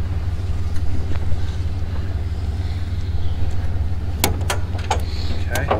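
Off-road vehicle engine running steadily, low in pitch, with a few sharp knocks about four seconds in and again near the end.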